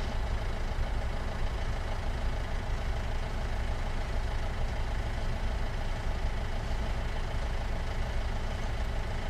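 Vehicle engine idling steadily, a low even rumble.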